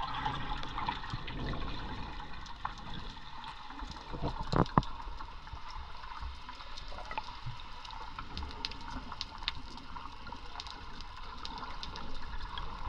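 Muffled underwater water noise picked up by a camera submerged in the sea, a steady rushing with scattered small clicks and a brief louder burst about four and a half seconds in.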